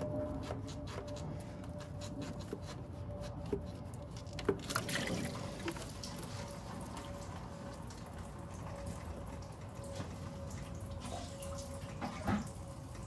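Engine coolant dripping and then running out of the plastic thermostat housing as it is worked off the 2.4L engine, with light clicks from the housing being handled. From about five seconds in, the dripping turns into a steadier splash of liquid.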